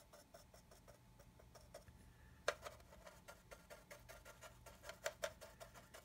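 Paintbrush stippling and dabbing on a plastic scale model tank's hull: a faint, quick run of soft taps, about four or five a second, with a sharper click about two and a half seconds in.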